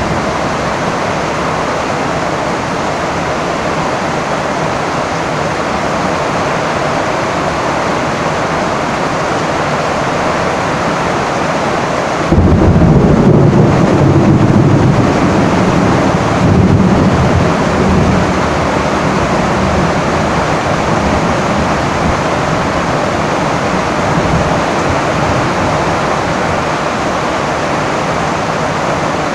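Heavy rain drumming steadily on a tin porch roof. About twelve seconds in a thunderclap breaks in suddenly and rumbles low for about six seconds, swelling again once before fading back under the rain.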